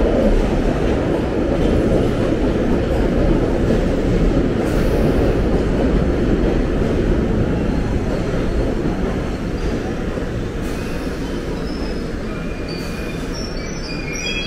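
London Underground Piccadilly line 1973 Stock train running into a tube platform and slowing to a stop: a loud, steady rumble of wheels on rail that slowly fades, with short high brake squeals near the end.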